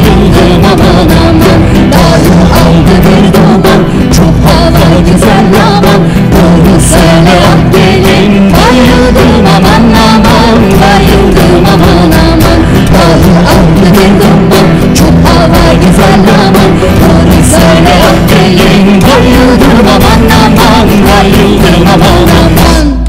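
Live Turkish folk ensemble of cello, long-necked saz, a wind instrument and drum kit playing a loud, driving song with a steady drum beat and singing. The band stops together on a final note near the end.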